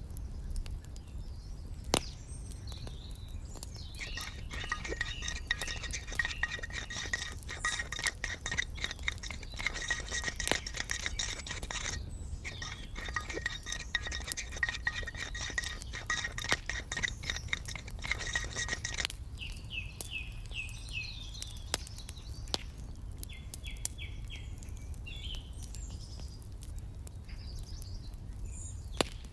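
Metal spoon clinking rapidly against miniature steel cookware, each touch leaving a high ringing tone, for about fifteen seconds with a short break midway. Afterwards birds chirp a few times.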